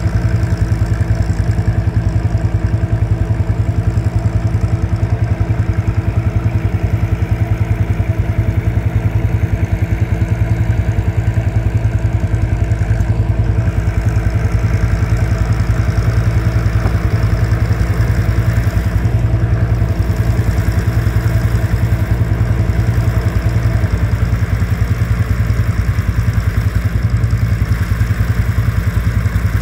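John Deere tractor engine running steadily, with a steady whine on top that stops a few seconds before the end.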